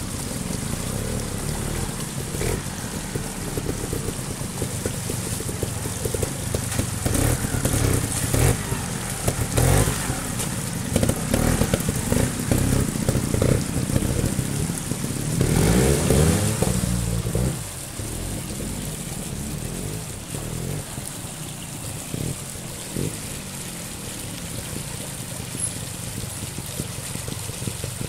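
Trials motorcycle engine blipped and revved in short bursts as the bike climbs over rocks in a stream, loudest in the middle with a quick rising and falling rev, then dropping back. Running stream water underneath.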